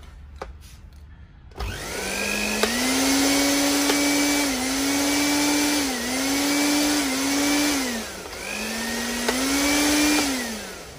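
National juicer-blender base with a newly replaced motor, running with no jar fitted: it starts about a second and a half in and whines steadily, its pitch dipping and recovering several times as the speed buttons are worked. It sags almost to a stop about eight seconds in, spins back up, then winds down near the end, a working test that shows the new motor running.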